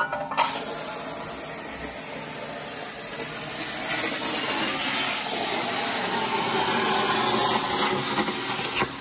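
CNC plasma cutter torch cutting 3/16-inch steel plate: a steady loud hiss of the arc and air jet that starts with a sharp pop, grows louder partway through and cuts off suddenly near the end.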